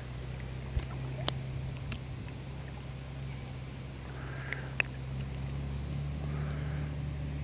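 Steady low rush of flowing river water, with a few sharp clicks scattered through it.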